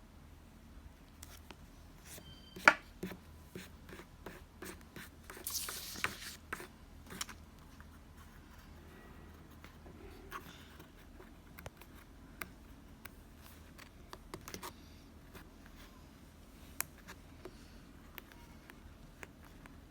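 Hands handling paper and stationery while laying out a planner page, close up in a small room: scattered light taps and clicks, with a short scratchy paper rustle a little over five seconds in.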